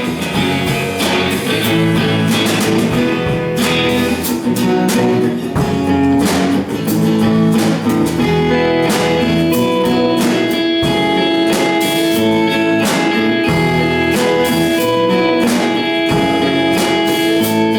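Live rock band playing an instrumental passage without vocals: guitars over a steady drum beat.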